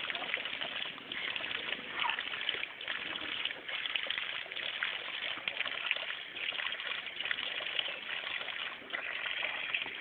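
Water running steadily from an outdoor tap and splashing over a drinking bull's muzzle onto wet ground.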